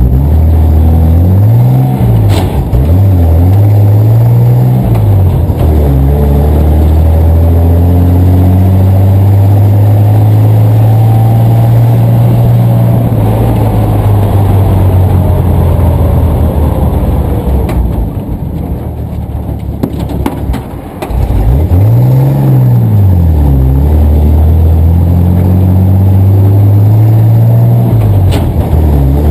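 1954 Dodge M37 Power Wagon's flathead straight-six engine pulling the truck along, heard from the open cab. Its pitch climbs and drops back twice through gear changes, holds steady at cruise, eases off for a few seconds about two-thirds of the way through, then climbs and drops again and pulls up once more near the end.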